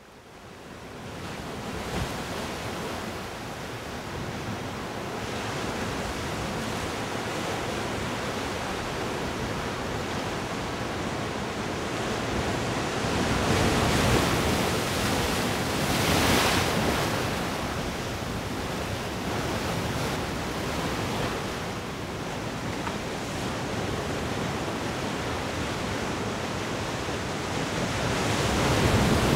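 Ocean surf washing in steadily, fading up from silence at the start, with waves swelling louder a little past halfway and again near the end.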